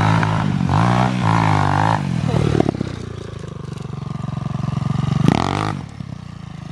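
200cc pitbike engine, fitted with a new cylinder, revving up and down as the bike is ridden. It runs steadier in the middle, then revs sharply about five seconds in and drops back.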